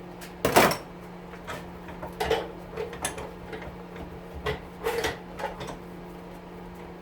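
Metal oven parts, likely stainless steel, being handled and knocked during a teardown: one loud clank about half a second in, then a string of lighter knocks and rattles. A steady low hum runs underneath.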